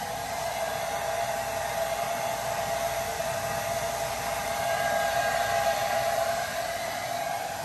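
Handheld hair dryer running steadily, a rush of air with a steady whine, blowing on a wet puppy's coat to dry it.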